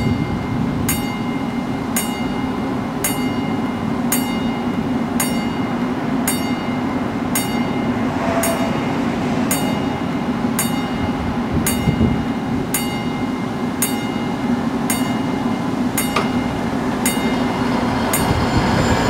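Mechanical level-crossing warning bell striking about once a second, each stroke ringing briefly, signalling that a train is approaching. A steady low rumble runs underneath.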